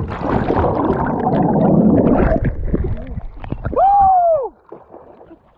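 Churning water and bubbles from a plunge into a lake, heard through a submerged action camera. About four seconds in, a man surfaces and lets out a short shout.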